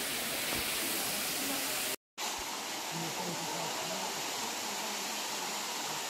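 Waterfall rushing steadily over rocks, with faint indistinct voices. The sound drops out completely for a moment about two seconds in, then the rushing resumes.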